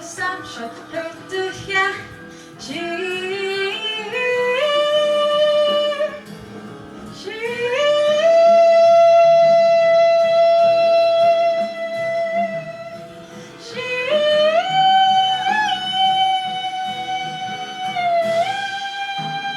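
Wordless jazz singing over a quiet instrumental accompaniment. The voice climbs in steps, holds one long high note for about six seconds, then rises to further sustained high notes.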